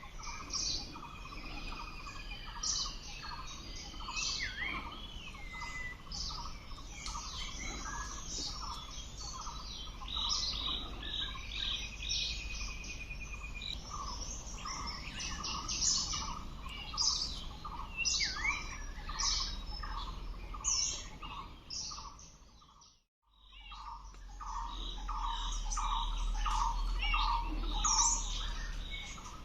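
Many wild birds chirping and calling together in quick, overlapping high notes, over a short lower note repeated about twice a second. The sound cuts out for a moment about three quarters of the way through.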